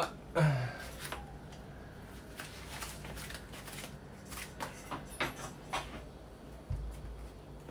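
Stainless steel bowls and a pot being picked up and cleared from a countertop, with a louder clatter about half a second in, followed by scattered light knocks and clinks of kitchenware being handled.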